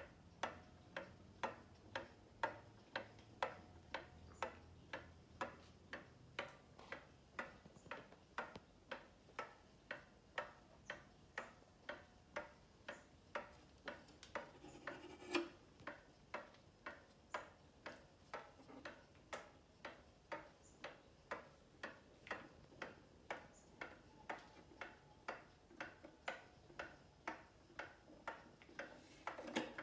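Antique Seth Thomas pendulum wall clock ticking steadily, about two ticks a second. One louder knock about halfway through.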